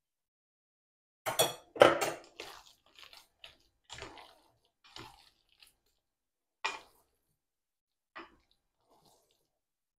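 Irregular clinks and knocks of a spoon and a bowl as minced meat for cutlets is stirred and mixed, the loudest about two seconds in.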